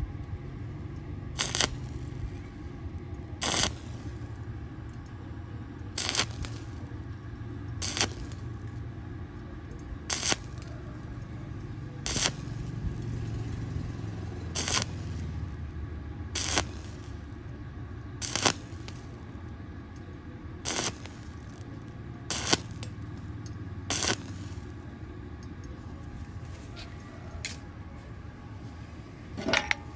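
Stick arc welding on a thin round steel pipe joint, the electrode struck in short bursts: a sharp crackle about every two seconds over a steady low rumble. The crackles stop about three-quarters of the way through, with one last brief crackle near the end.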